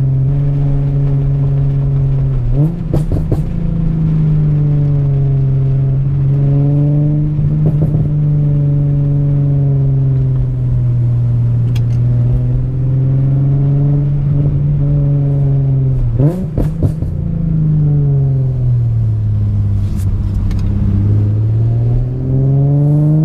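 Infiniti G37's 3.7-litre V6 with an ISR aftermarket exhaust, heard from inside the cabin while driving: a steady engine drone whose pitch sags and climbs with the throttle, jumping up sharply about two and a half seconds in, sinking low toward the end and then rising again. A few short clicks sound over it.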